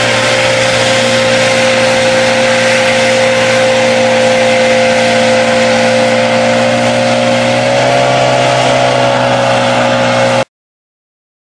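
Personal hovercraft's engine and ducted fan running hard and steady, rising slightly in pitch about eight seconds in, then cutting off abruptly near the end. The craft is ploughing through spray, which the caption puts down to the hovercraft being unable to get over hump even with only two on board.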